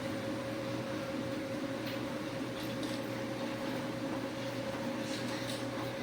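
Steady mechanical hum with a constant mid-pitched tone, with a few faint light clicks about two seconds in, near three seconds and about five seconds in.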